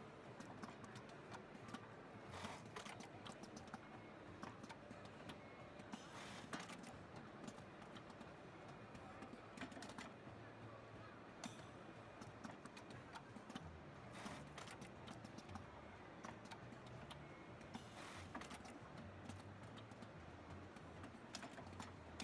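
Automatic shoe-tongue loop attaching sewing machine running through its cycle: faint rapid clicking and tapping of the stitching and feed mechanism, with a few short, louder bursts of noise.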